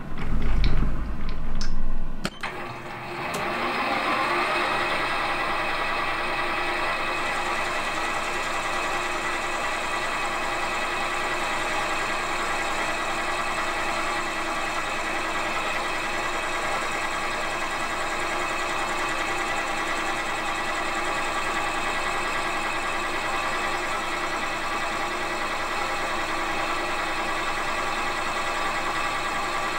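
Small metal lathe coming up to speed, a rising whine about three seconds in after a loud low rumble, then running steadily while the turning tool cuts a brass bar down into a bush.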